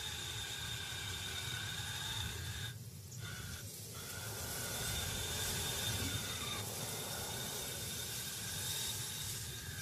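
Steady hiss with faint, held high-pitched tones over a low rumble, dipping briefly about three seconds in.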